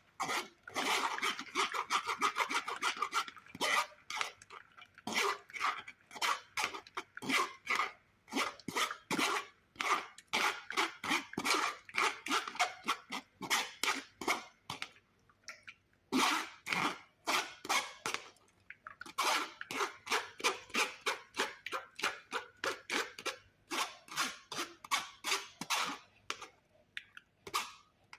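Rhythmic scraping, crunching strokes of hand food preparation in a kitchen, about two or three a second, pausing briefly a few times.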